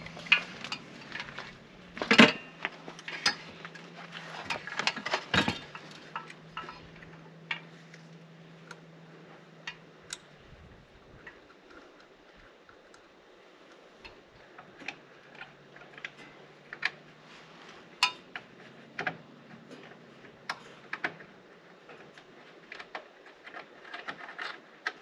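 Scattered clicks, taps and light metal clinks of hardware being handled while an outdoor Wi-Fi access point and its mounting pole are put up, over a faint steady hum.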